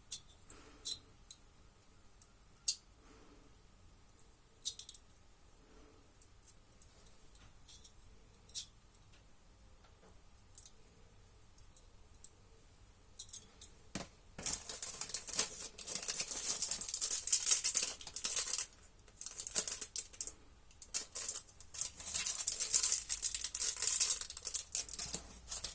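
Handling noise from small hard parts: scattered light clicks and taps, then from about halfway a dense crackling rustle full of clicks that lasts about ten seconds and stops near the end.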